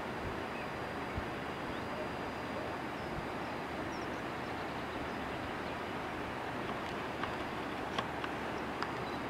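Steady rushing outdoor noise with no speech, and a few faint clicks near the end.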